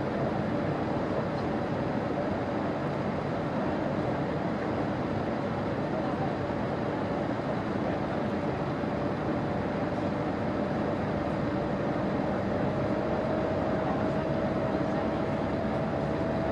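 Cabin noise of a Boeing 787-8 Dreamliner climbing through cloud, heard from a window seat beside the engine: a steady rush of jet engine and airflow with a whine in it that rises slightly in pitch near the end.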